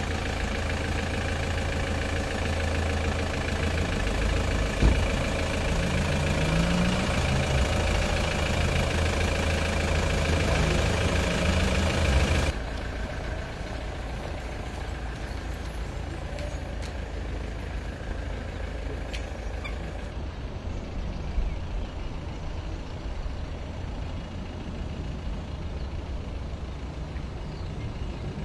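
A van's engine running close by as it pulls away slowly, its pitch wavering up and down. About twelve seconds in the sound cuts off suddenly to a quieter, steady rumble of the vehicle moving off.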